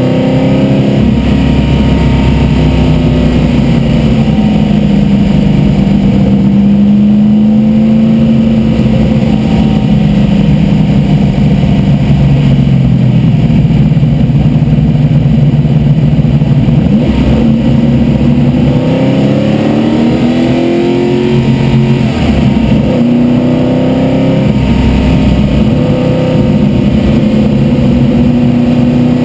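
Vintage race car's carbureted engine at racing speed, heard from inside the cockpit, its pitch rising and falling again and again as it accelerates, lifts and changes speed through the corners.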